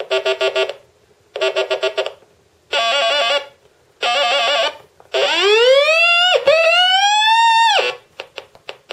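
Doomsday Sound circuit-bending synth kit sounding through its small speaker as fingers bridge its metal touch contacts. It plays four short bursts of buzzy, pulsing and warbling electronic tones with gaps between them, then two long rising siren-like sweeps, each over a second long.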